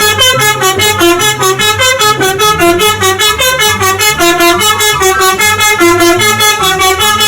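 Tune in the manner of an Indonesian 'telolet' multi-tone bus horn: a brassy, horn-like tone playing a quick melody of evenly paced notes, about four to five a second, stepping up and down.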